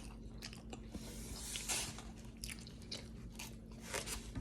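Close-up mouth sounds of eating: chewing and biting, with scattered short, irregular crunchy and wet noises.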